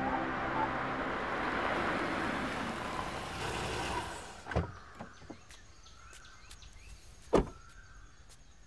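A small hatchback car's tyres and engine run steadily as it drives up on a dirt road, and the noise stops about four and a half seconds in as the car halts. After that it is quieter, with a few clicks, a sharp click about seven and a half seconds in being the loudest, and faint bird chirps.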